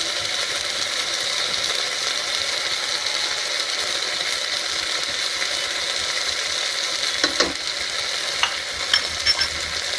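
Soaked broken rice and spices sizzling in hot oil in a pressure cooker as they are sautéed and stirred: a steady frying hiss. A few sharp clicks come in the last few seconds.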